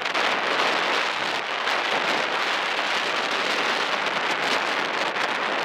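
Steady rushing wind noise on the microphone, even and unbroken.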